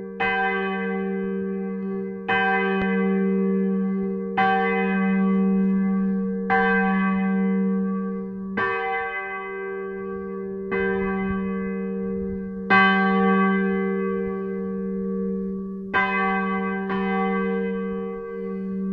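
A 580 kg church bell cast at Midwolda in 1949, tuned to G, swung by a crankshaft drive and struck by its clapper about every two seconds, each stroke ringing on into the next over a steady deep hum. Near the end, after a longer gap, two strokes come about a second apart.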